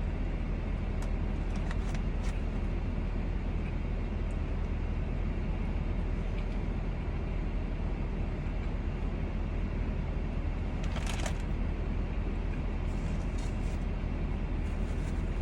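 Steady low rumble of a car cabin, with paper rustling a few times, the loudest rustle about eleven seconds in.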